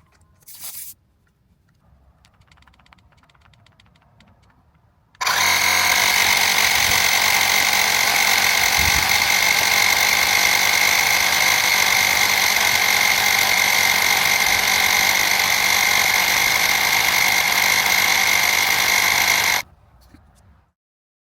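Bosch EasyPump cordless inflator's compressor running steadily with a high whine for about fourteen seconds, then cutting off suddenly as it reaches its preset pressure and stops itself.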